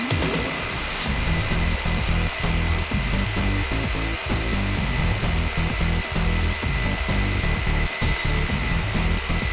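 Two cordless rotary hammer drills running together, hammer-drilling 16 mm holes into a solid concrete kerb stone: a Bosch 36-volt GBH 36V Li and a competing 24-volt machine. A continuous hammering rattle under a steady high motor whine.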